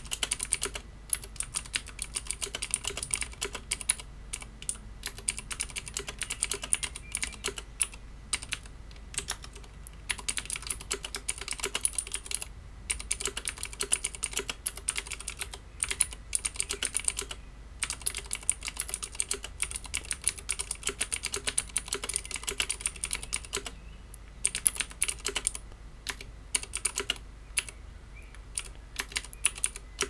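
Typing at about 60 words per minute on a Leopold FC660M keyboard with clicky Cherry MX Blue switches and PBT keycaps: a rapid, uneven stream of sharp clicks, broken by short pauses every few seconds.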